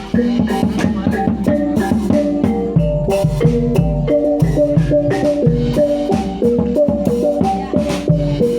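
Javanese reog percussion ensemble playing: struck tuned metal instruments ring out a fast repeating melody over steady drumming.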